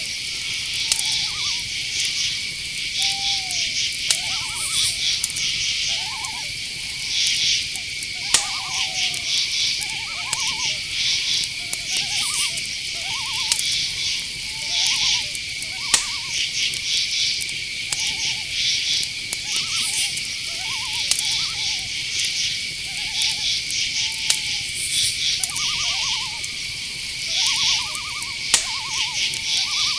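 Night chorus of crickets: a steady high trill under pulsing chirps. Over it come many short, repeated owl calls about a second apart, and a few sharp clicks.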